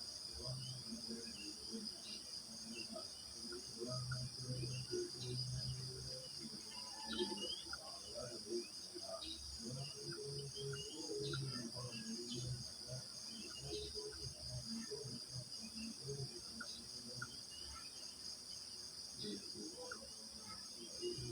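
Crickets chirping in a continuous high-pitched chorus, with short bird chirps scattered over it and brief lower sounds underneath.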